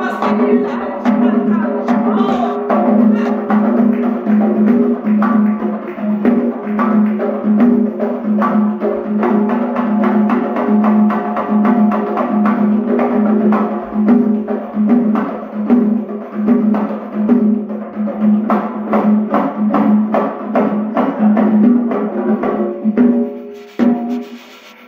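Two doira frame drums beating a fast, dense rhythm under singing in a Bukharan Jewish maverigi wedding song. The music stops about a second before the end.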